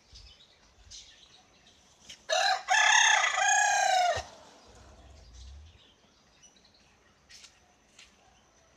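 A rooster crowing once, about two seconds in: a short first note, then a long arched note that drops away at the end. Faint short chirps come before and after.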